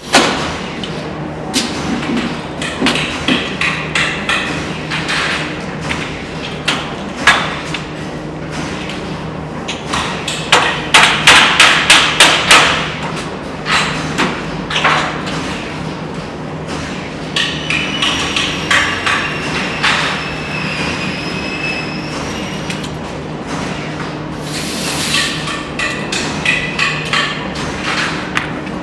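Irregular clicks, knocks and clatter from an insulated glass unit with built-in blinds as it is handled and its blind mechanism worked. A little before halfway comes a quick run of about eight sharp knocks, roughly four a second. A steady low hum runs underneath.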